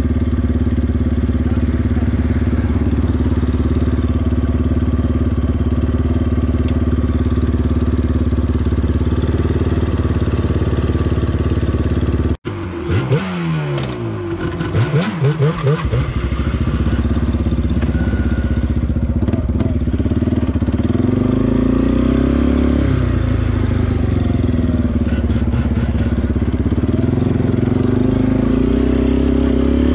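Yamaha sport quad engines (Warrior 350 and Banshee 350) idling steadily at a stop. About twelve seconds in, the sound breaks off for a moment; then an engine revs up and down several times over a few seconds with some rattling, before settling back to a steady idle.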